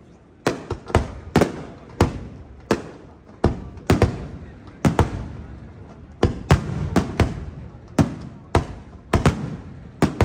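Aerial firework shells bursting in quick succession, about two loud bangs a second after a quieter first half-second, each trailing off in a rolling echo.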